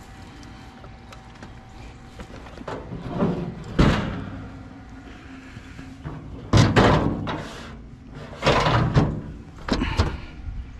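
Scrap being shifted and set down in a truck bed: a series of heavy thumps and clunks, several seconds apart, with some scraping between them.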